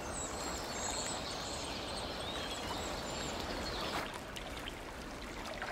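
Steady running-water ambience like a flowing stream, with faint bird chirps over it.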